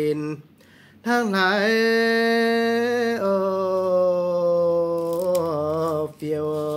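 A single voice singing long, drawn-out notes with a slight waver, pausing briefly about half a second in and again just before the end.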